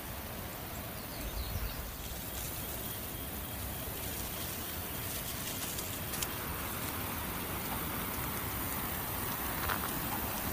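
Steady hissing outdoor background noise with a few faint ticks.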